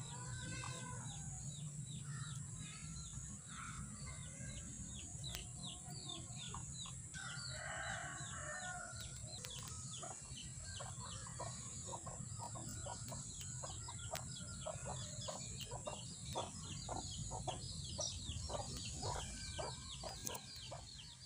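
White Ayam Ketawa (laughing chicken) rooster crowing its laughing crow. A longer opening note comes about seven seconds in, then a long run of short staccato notes, about three a second, for some ten seconds.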